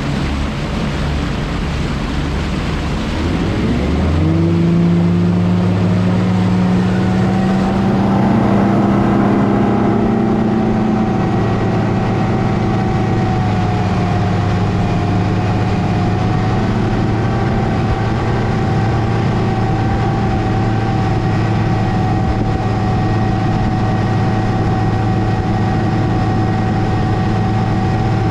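Bass boat outboard motor throttled back: the rush of wind and water of running on plane dies away about four seconds in as the boat drops off plane, leaving the engine's steady low hum at slow speed.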